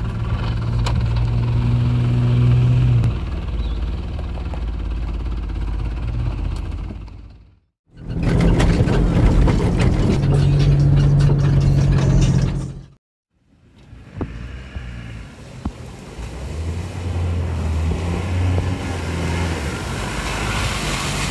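Land Rover Defender's engine idling steadily. Then, across two cuts, vehicle engine sound while driving a forest trail, and the Defender's engine pulling it through muddy water, with noise rising near the end.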